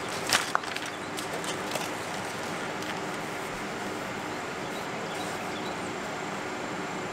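A few sharp crackles in the first second as the backing paper comes off self-adhesive flashing tape, then quiet rubbing as the tape is pressed down by hand, over a steady outdoor background with birds calling faintly.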